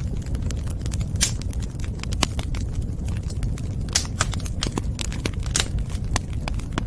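Wood fire burning in a fireplace: irregular sharp crackles and pops, a few louder snaps, over a steady low rumble of the flames.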